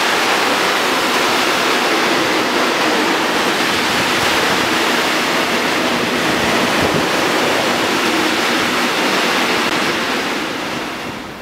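Freight train of open goods wagons passing close by at speed: a loud, steady rush of wheels on rail that eases off near the end as the last wagons go by.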